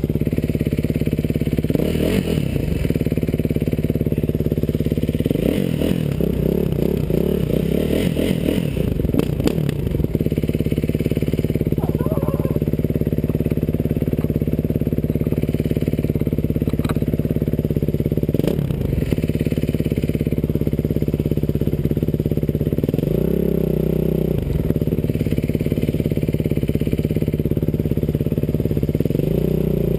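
Dirt bike engine running while being ridden, heard close up from the rider's helmet, its pitch shifting up and down several times as the engine speed changes.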